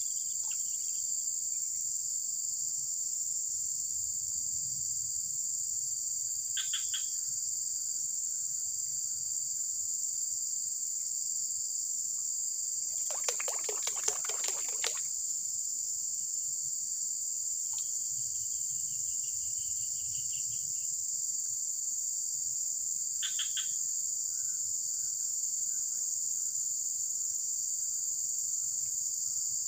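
Steady, high-pitched drone of a dense insect chorus, with a brief noisy burst about halfway through and two short high calls.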